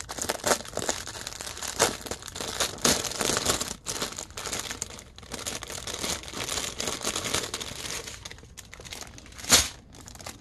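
Plastic packaging of diamond-painting drill bags being wrestled open by hand, crinkling and crackling irregularly, with one louder snap near the end.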